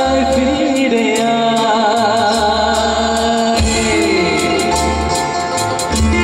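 A man sings a Bengali song into a microphone over a live band, with electric guitar, bass and drums keeping a steady cymbal beat.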